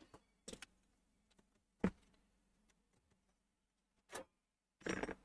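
A few scattered clicks and knocks of hands working inside a desktop PC case as the graphics card is unfastened and pulled out: two light clicks, then single knocks, and a short clatter near the end.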